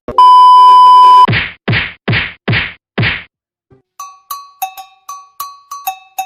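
Edited-in sound effects: a steady, very loud bleep tone lasting about a second, then five quick whack impacts in a row. After a short gap, plucked pizzicato string music starts near the end.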